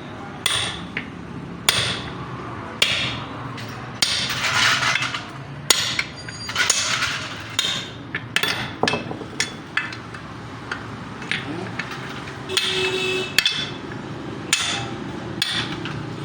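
Hammer blows on metal at an irregular pace, sharp knocks with a short clinking ring, while a bushing is being driven out; a few longer scraping stretches come between the strikes.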